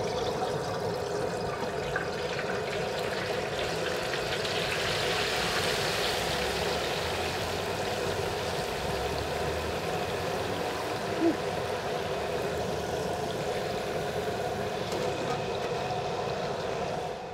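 Hot peanut oil bubbling and frothing steadily around a whole turkey lowered into a propane fryer pot, with one short knock about eleven seconds in.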